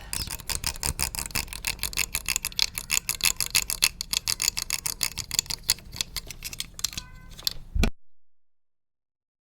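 Fast, even tapping, several sharp taps a second. It cuts off abruptly into dead silence near the end.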